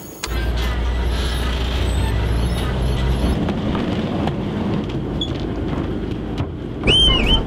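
Engine of a Chao Phraya express river boat running with a steady low rumble. Near the end comes a brief high, warbling tone.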